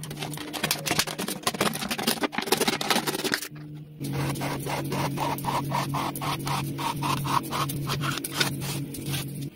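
PET plastic bottle scraping and crackling as it is handled and drawn through a bearing-guided bottle strip cutter into a strip, over a steady low hum. In the second half the clicks fall into a regular rhythm of about four to five a second.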